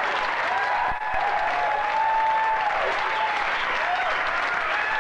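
Audience applauding and laughing after a stand-up punchline, with a few voices whooping and calling out over the clapping.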